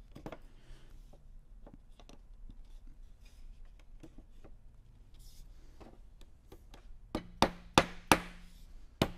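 Mallet knocking wooden seat slats into a chair frame to seat them as a snug friction fit: light clicks of wood being handled, then about five sharp knocks in quick succession starting about seven seconds in.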